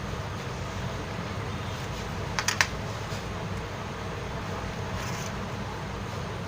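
Steady low hum of a fan or machine on a repair bench, with a quick cluster of small sharp clicks about two and a half seconds in as tools are handled.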